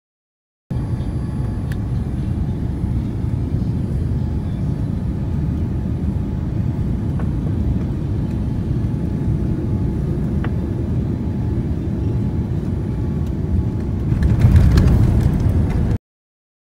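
Jet airliner cabin noise heard from a window seat: a steady low rumble of the engines and the plane moving on the ground. It swells louder about fourteen seconds in, then cuts off suddenly.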